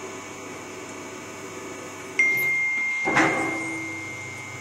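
Truck tyre-changing machine at work: about halfway through, a high steady whistle starts suddenly and holds, and about a second later a single metal clank rings out briefly.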